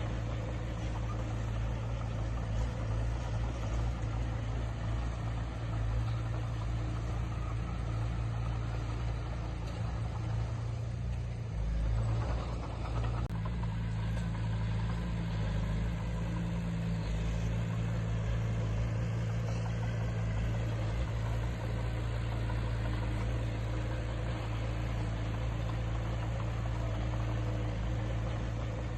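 Diesel engine of heavy earthmoving equipment running with a steady low drone, its note shifting briefly about twelve seconds in.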